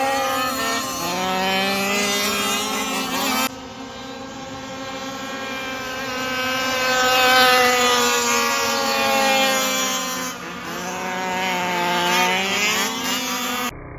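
Several 1:5 scale gas RC race cars' small two-stroke engines running at high revs, their pitches rising and falling and crossing as the cars accelerate, lift and pass. The sound changes abruptly twice, at about three and a half and ten seconds in, and again just before the end.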